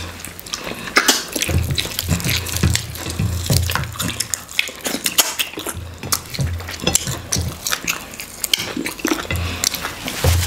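Close-up wet eating sounds of okra soup and goat meat eaten by hand: chewing and lip smacks, with many short sticky clicks from fingers in the slimy soup.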